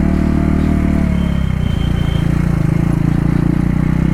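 KTM Duke 390's single-cylinder engine running loud at low speed, with the stock exhaust removed. It dips briefly about a second and a half in.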